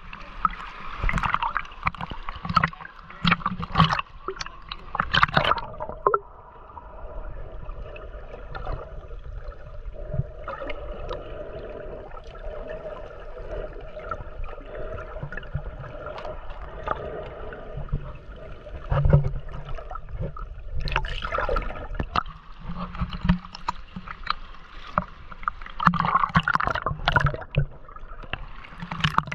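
Water splashing and gurgling around a kayak as it is paddled, with irregular splashes and knocks from the paddle and hull.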